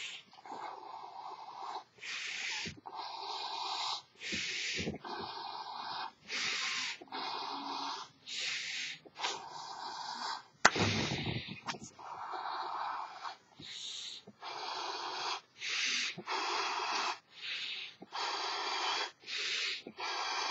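A person blowing up a large elephant-shaped novelty balloon by mouth: a steady run of breathy rushes of air, about one a second with short pauses between them, and one louder, deeper puff about halfway through.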